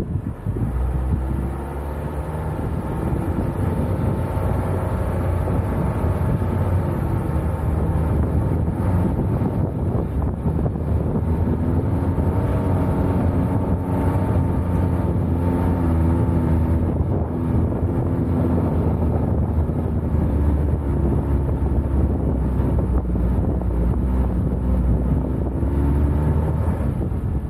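Renault Koleos engine running as the SUV is driven, its note rising and falling several times with the throttle over a steady low rumble, with wind noise on the microphone.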